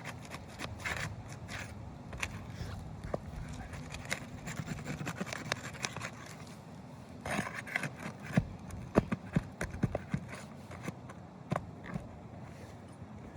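Scraping and clicking on asphalt roof shingles, with a run of sharp knocks in the second half, as shingles are worked loose during a repair attempt.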